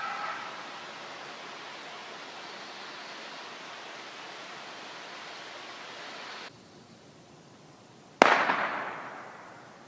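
A single gunshot about eight seconds in, with a trailing echo that dies away over a second or so; the recordist takes it for someone firing a .22 or something into the woods. Before it, the last of an animal call fades out at the very start over a steady hiss.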